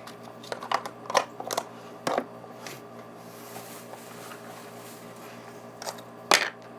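Slime and plastic slime containers being handled: scattered soft clicks and rustles, with one louder sharp snap about six seconds in, over a faint steady room hum.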